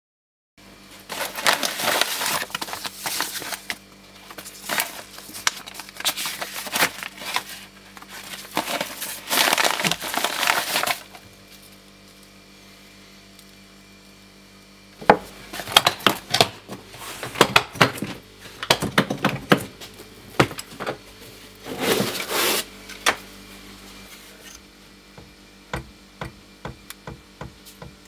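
Paper and packaging rustling and crinkling in dense bursts. After a quieter stretch come clicks and short rustles as a small metal folding-stock hinge is handled over the papers.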